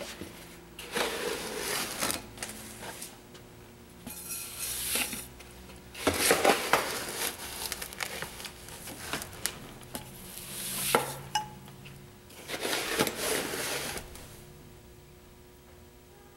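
Bath salts (Epsom and sea salt mixed with lavender) being scooped from a plastic tub with a plastic scoop and poured into a large glass jar. There are about five rustling, hissing pours of salt crystals, with the scoop knocking and scraping against the tub between them. The pouring stops about two seconds before the end.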